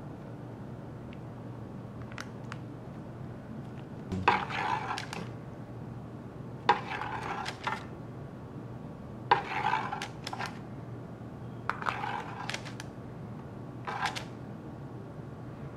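A metal spoon clinks and scrapes five times, a couple of seconds apart, each a sharp tap followed by a short scrape, as it scoops and spreads garlic-and-onion butter. A faint steady hum runs underneath.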